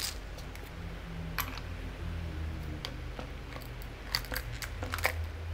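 Ice cubes clicking against a metal cocktail shaker and a tall glass as the shaken iced coffee is poured out. The clicks are scattered, come thickest about four to five seconds in, and sit over a steady low hum.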